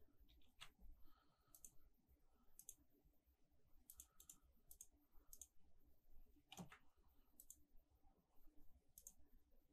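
Faint clicks of a computer mouse, about a dozen spread irregularly, some in quick pairs, with one louder click about six and a half seconds in, over near-silent room tone.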